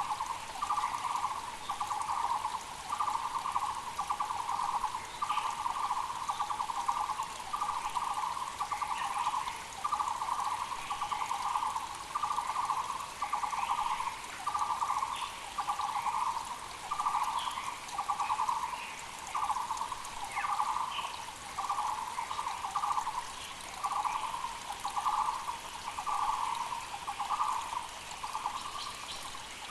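Taiwan barbet (Müller's barbet) calling: a rapid pulsing note repeated about once a second without a break. Behind it runs the steady rush of a mountain creek, with faint short calls of other birds.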